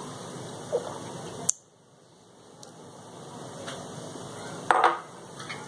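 Steady kitchen hiss that breaks off sharply about a second and a half in and builds back, with a few light clicks and a louder clatter of metal pots near the end.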